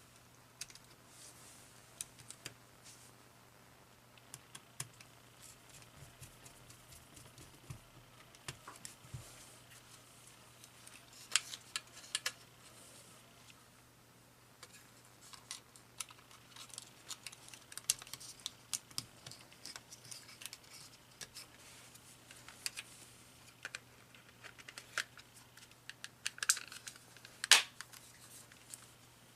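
Irregular small plastic clicks and taps from a cordless phone handset being handled and put back together, the loudest click near the end.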